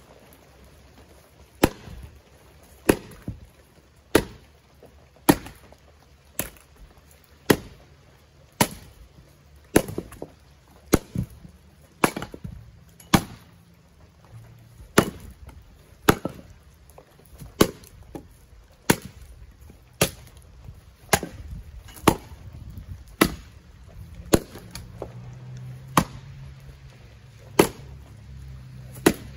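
Axe splitting firewood rounds: a sharp chop of the axe head into the wood about once a second, in a steady rhythm with a short break about halfway.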